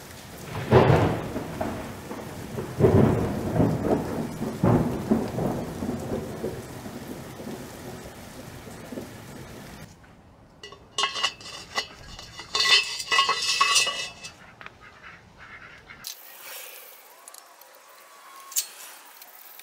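Rolling thunder over a hiss of rain for about the first ten seconds. After a sudden cut come a run of sharp metallic clinks and rattles as steel parts are handled on a bench vise, then a single click near the end.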